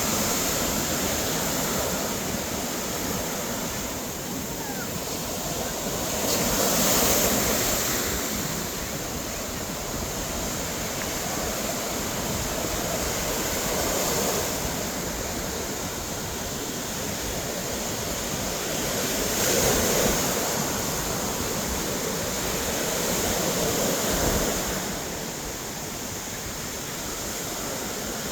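Ocean waves breaking and washing ashore, a steady rush that swells with each wave about every six seconds, with some wind on the microphone.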